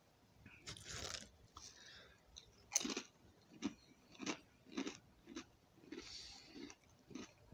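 Faint crunching of a person chewing wavy-cut potato crisps: a run of sharp, light crunches about two a second from about three seconds in, the first the loudest.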